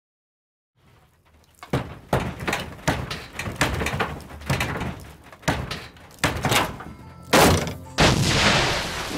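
A run of heavy thuds and knocks at irregular intervals, starting after a second and a half of silence, then an explosion about eight seconds in, its blast dying away slowly in a rumbling hiss.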